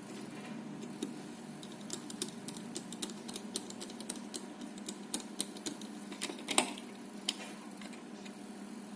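Irregular sharp clicks and taps of small hardware and plastic housing parts being handled and fitted while the radio's microphone is reassembled, with a louder clack about six and a half seconds in, over a steady low hum.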